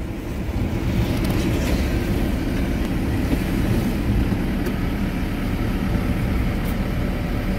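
Steady low rumble of engine and road noise from a moving vehicle.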